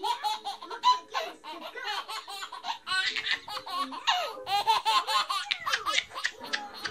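A baby laughing hard: a long run of short laughs in quick succession, the pitch sliding up and down.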